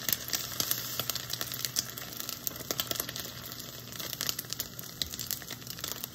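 Eggs frying in a stainless steel pan, sizzling steadily with many small crackles and pops.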